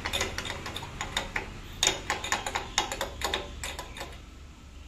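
A small bottle of fuel additive held upside down in a motorcycle's fuel filler neck, draining into the tank with irregular clicking glugs, several a second, which stop a little after four seconds in.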